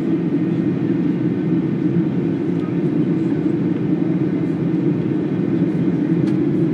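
Steady low roar of a Ryanair Boeing 737's jet engines and airflow, heard from inside the passenger cabin in flight.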